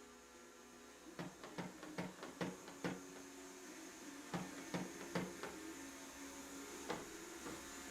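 Rapid sharp clicks of a 2016 Ford F-150's door handle and latch being worked over and over in two quick runs, then a couple of single clicks, over a steady low hum. The latch is frozen in the cold and won't release the door.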